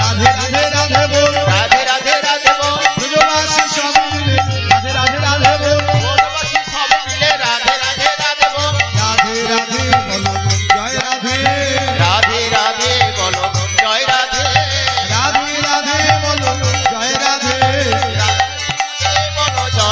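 Harmonium and khol (Bengali mridanga drum) playing a kirtan without words: held harmonium chords over a steady drum rhythm, with the drum's bass head sliding in pitch.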